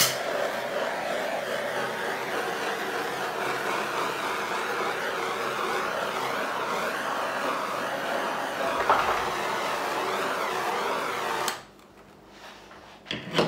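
Handheld torch flame passed over wet acrylic pour paint, a steady hissing rush that cuts off suddenly near the end.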